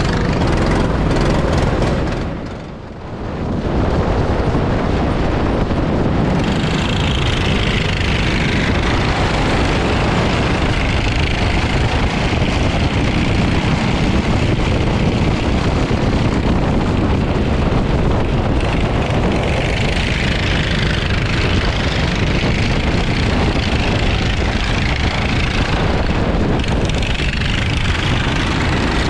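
Go-kart running at speed on a wet track, heard from a camera mounted on the kart. The loudness drops briefly about three seconds in.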